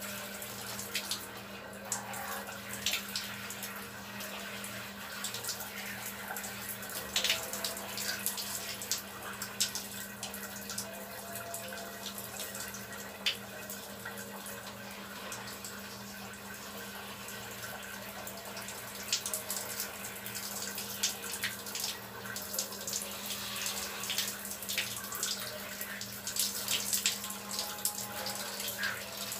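Water spraying from a handheld shower head onto a person's body, a steady hiss with scattered sharper splashes and drips. A steady low hum runs underneath.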